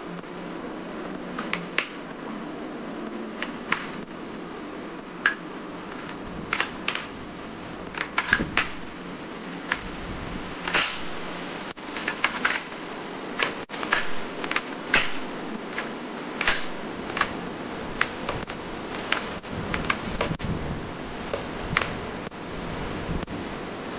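Hard plastic clicks and taps from a toy crossbow gun being handled and worked, coming irregularly and often in quick pairs or clusters, over a steady hiss.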